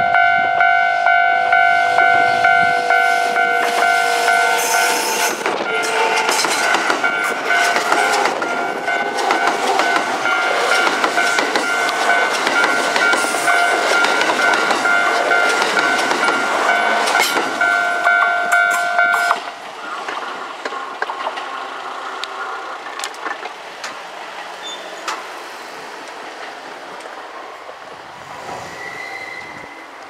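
Japanese level-crossing alarm ringing its steady two-tone electronic clang, about two strokes a second, while a Kintetsu limited express of 22600, 22000 and 30000 series cars passes close by with a loud rumble and clickety-clack of wheels on the rails. The alarm cuts off suddenly about two-thirds of the way through, leaving the fading rumble of the train.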